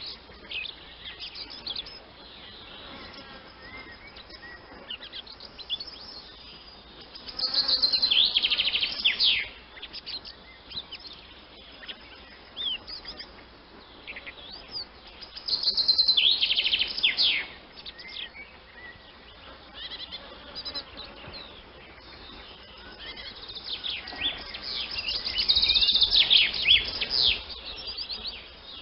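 Swallows twittering: rapid high chirps and trills, rising to three louder bouts of about two seconds each with softer calls in between.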